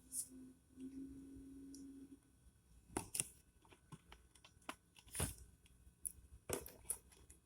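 Faint handling noises: a few short, separate clicks and rustles of objects being handled, after a faint steady hum in the first two seconds.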